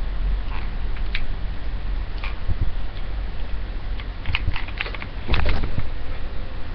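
Scattered light clicks and rustles from handling a corded hair-styling iron in the hair, busiest about four to five seconds in, over a steady low hum.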